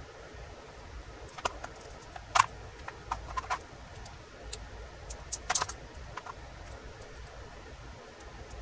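Small metal parts and tools being handled while a revolver is taken apart: a scattering of short, sharp clicks and taps, the loudest about two and a half seconds in and again around five and a half seconds.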